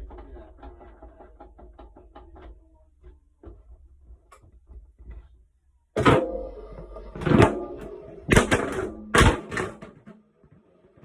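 A phone tumbling inside a turning Beko washing machine drum: light rapid knocks at first, then four loud knocks in the second half as it drops against the drum.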